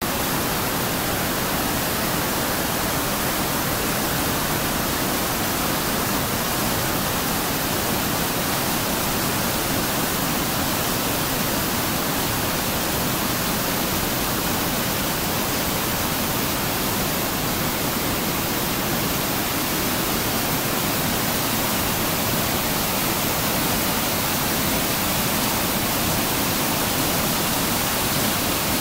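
Waterfall rapids tumbling over rocks: a steady, unbroken rushing of water.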